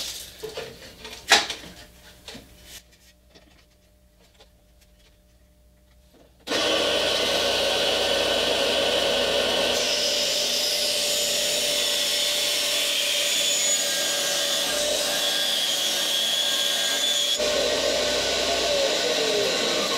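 Bandsaw cutting through a wooden board: a steady, loud blade-and-motor noise that comes in suddenly about six seconds in, after a few short knocks.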